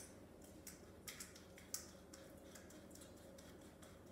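Faint, irregular high-pitched ticks of pepper being dispensed over cut potatoes, a few clicks a second.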